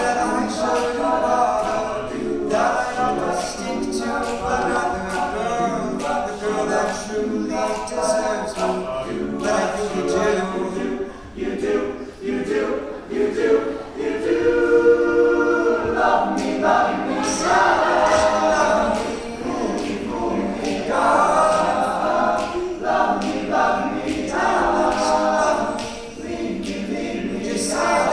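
All-male a cappella group singing in harmony, a lead voice over the backing voices, with no instruments.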